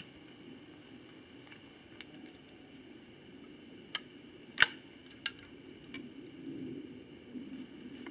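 Magtech 199 20-gauge single-shot break-action shotgun being handled and reloaded between shots: a few light metallic clicks, with the sharpest clack about four and a half seconds in and another shortly after.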